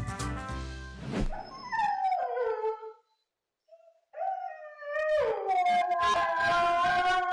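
Upbeat background music for about the first second, then a short falling pitched call. After a brief silence a dog howls in long, drawn-out notes.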